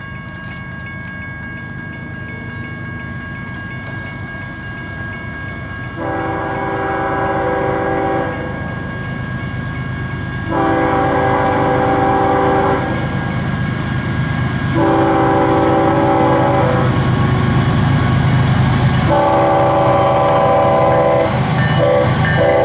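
Air horn of an approaching Union Pacific intermodal stack train led by a GE Evolution-series C45ACCTE diesel locomotive, sounding four long blasts of about two seconds each, then two short toots near the end. Under the horn, the rumble of the diesel locomotives grows steadily louder as they draw near.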